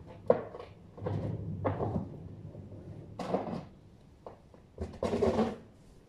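Snow shovel scraping over snow and paving in several separate strokes, the first one starting with a sharp knock.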